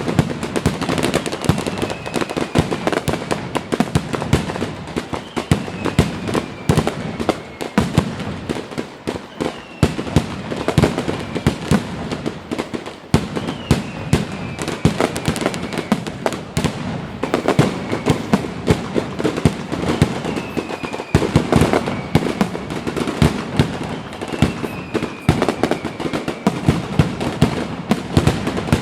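Fireworks display going off continuously: a dense run of cracks and bangs, with short falling whistle-like tones every couple of seconds.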